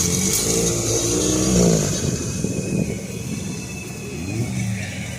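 Off-road buggy (gaiola cross) engine heard from on board, revving up and down as it is driven, its pitch rising and falling several times. It is loudest about a second and a half in.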